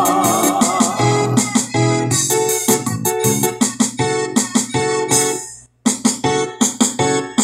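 Instrumental outro of a gospel song: electric keyboard playing short, rhythmic chords over bass and percussion, with a brief break about three-quarters of the way through.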